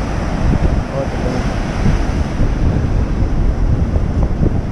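Sea surf breaking and washing up the shore, with wind buffeting the microphone in a steady low rumble.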